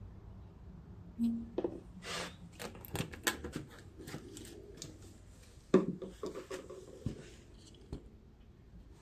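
Plastic motor-oil bottle and funnel being handled: a string of clicks, scrapes and rubbing as the bottle is opened and worked into the funnel, with a sharp knock about six seconds in.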